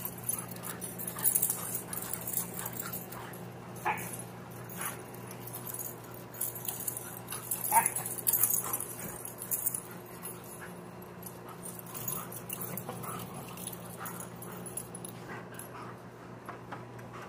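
A husky and a black-and-tan Rottweiler-type dog play-fighting, with scattered short yips and whimpers, over a steady low hum.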